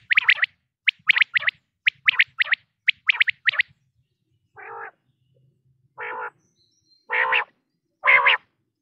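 Quail calling: short, sharp call notes in quick groups of two or three for the first half, then four longer, lower, rasping calls about a second apart.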